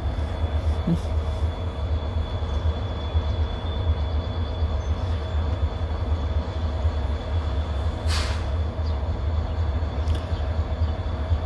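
Two diesel freight locomotives standing and idling, a steady low rumble with steady tones over it. A short hiss comes about eight seconds in.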